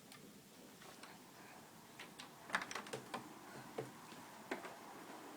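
Faint footsteps going down an indoor staircase: light, irregular knocks and clicks starting about two seconds in.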